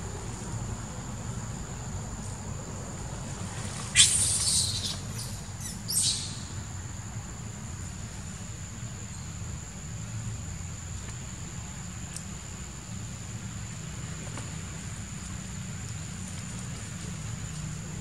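Macaque shrieking twice in high-pitched squeals, a longer one about four seconds in and a shorter one about two seconds later.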